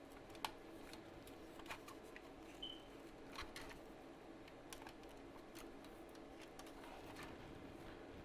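Faint, scattered clicks and taps of small plastic and metal parts being handled, as a power strip's push-in circuit breaker is worked out of its housing, over a faint steady hum.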